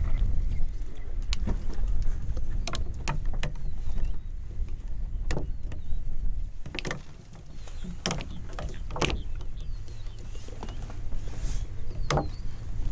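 Lions feeding on a wildebeest carcass, crunching bone and tearing meat in a series of sharp, irregular cracks and clicks over a steady low rumble.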